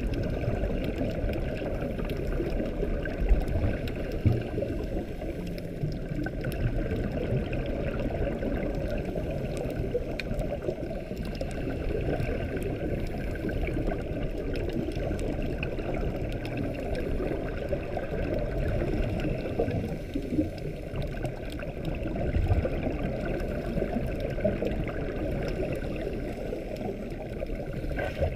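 Underwater ambience recorded by a GoPro 4 sealed in its waterproof housing: a steady, muffled low rushing of water, with two sharp knocks about three and four seconds in.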